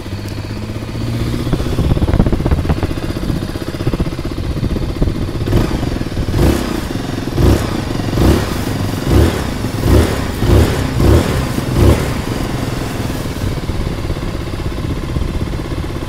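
Zontes 350 R1 motorcycle engine, a single-cylinder, idling and being revved through its exhaust. It picks up briefly about a second or two in, then gets a quick run of about nine short throttle blips before settling back to idle near the end.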